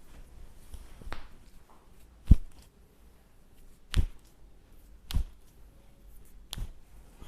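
Joints cracking under chiropractic manipulation: five sharp pops spread over several seconds, the loudest a little over two seconds in.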